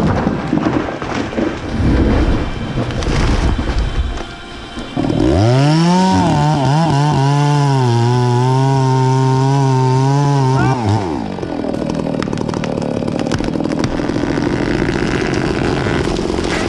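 Chainsaw revving up about five seconds in and held at a high, steady speed for about five seconds, then dropping back to a lower, rougher running. Irregular rustling and knocks come before it.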